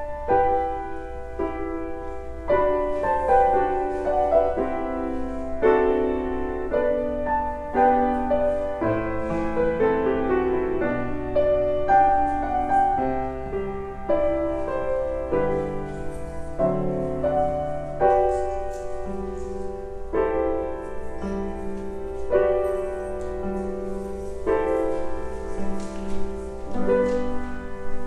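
Piano music playing.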